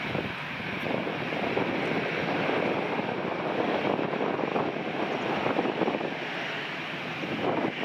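Twin jet engines of an Airbus A320-family airliner at taxi power as it taxis and turns close by: a steady jet rush and whine.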